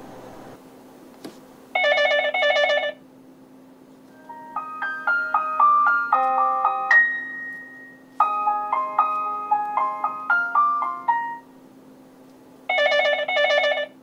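Video intercom indoor monitor's built-in speaker playing ringtone previews: a short rapid electronic trill, then two phrases of a simple synthesized melody, then the trill again near the end. A faint steady hum runs underneath.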